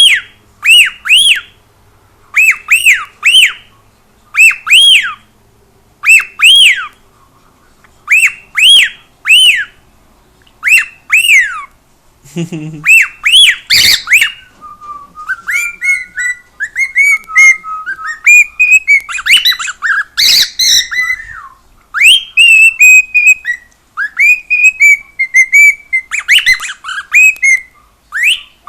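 Cockatiel whistling: first a repeated call of short rising-and-falling whistles in quick groups of two or three, which the owner likens to an alarm, then, about halfway through, a looser warbling song of gliding notes. Two brief noisy bursts cut across the song.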